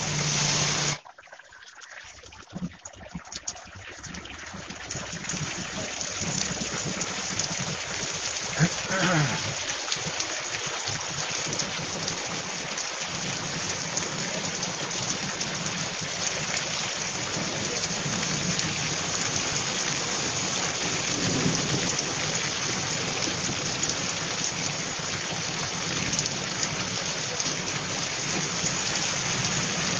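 Heavy rain pouring onto a paved road and wet ground, a steady dense hiss. It drops away about a second in and builds back up over the next few seconds. A short wavering pitched sound comes through about nine seconds in.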